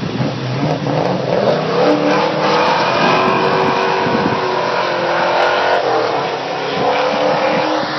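1997 Pontiac Trans Am's LT1 V8, breathing through headers and a 3-inch custom exhaust, revving hard during a burnout. It climbs in pitch over the first two seconds, then is held at high revs with small dips.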